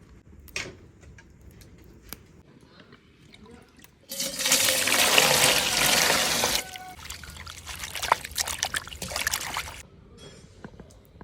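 Water pouring for about two and a half seconds, starting and stopping abruptly, then quieter splashing and trickling for about three seconds.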